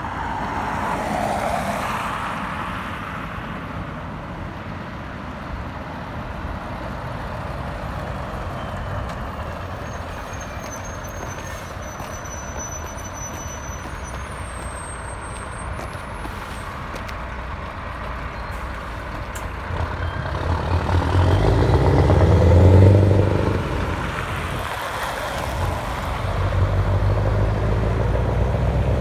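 Scania V8 diesel truck engine through loud exhaust pipes, with road traffic going by. About two-thirds of the way through, a deep engine rumble builds up to its loudest, drops away briefly, then comes back and holds steady.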